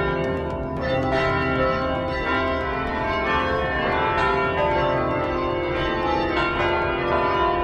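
The Belfry of Bruges carillon playing its quarter-hour tune: many bells struck in quick succession, their tones ringing on and overlapping.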